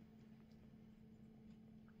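Near silence: room tone with a faint steady low hum and a few very faint ticks.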